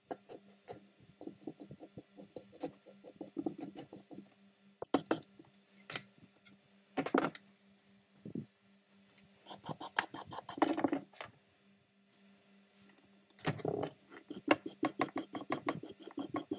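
A small metal file scraping along the steel threaded screw of a G clamp: spurts of rapid rasping clicks as the file's teeth run over the threads, with a few louder single strokes.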